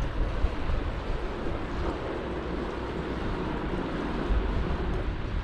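Wind rushing and buffeting over the microphone of a camera on a moving bicycle, a steady uneven low rumble, with the hiss of tyres rolling on a wet road.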